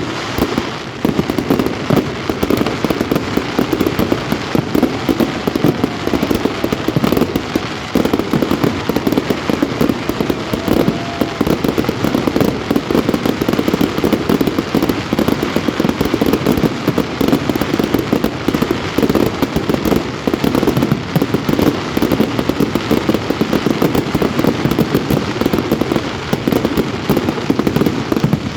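Fireworks display: a dense, continuous barrage of bangs and crackles with no let-up.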